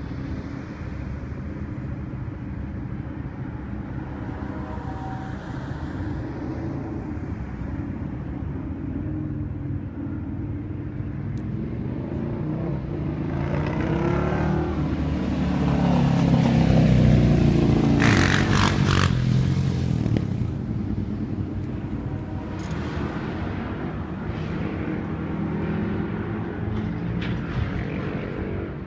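Freight train's cars rolling past with a steady low rumble. About midway a road vehicle passes close, its sound rising and falling, with a brief run of sharp clicks at its loudest.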